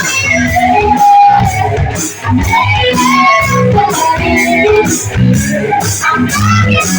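Live band playing a rock song: electric guitar strumming over bass and drums with a steady beat.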